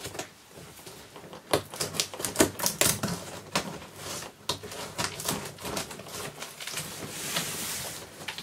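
Rapid clicks and scrapes of a cardboard shipping box being opened by hand, with a longer hiss about seven seconds in.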